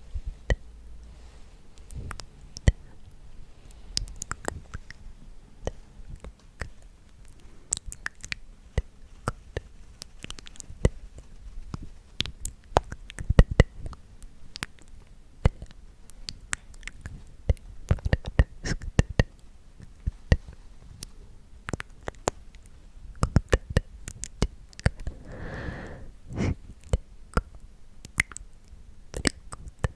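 Close-miked ASMR mouth sounds: irregular wet clicks and smacks, with a brief hummed or voiced sound about three-quarters of the way through.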